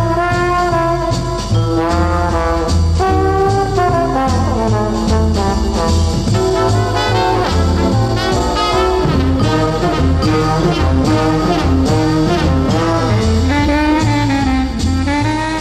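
Background music: a brass-led jazz tune over a bass line moving in steady, even notes.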